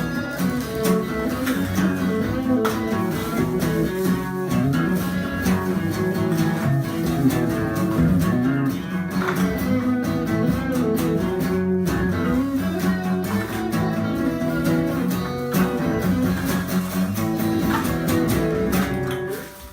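Instrumental band music led by guitars, with strummed and plucked parts, that stops abruptly right at the end.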